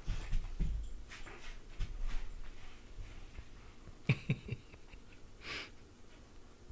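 Anatolian Shepherd–Great Pyrenees mix puppy breathing and snuffling through its nose as it lies chewing a toy. A couple of sharp clicks come about four seconds in, and a short breathy huff follows a second later.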